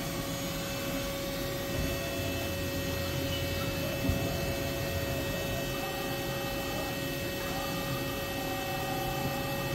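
Haas UMC-750 five-axis machining center's trunnion table tilting and swinging back while its rotary platter turns, heard as a steady electric hum with a constant tone and faint shifting servo whine in the second half.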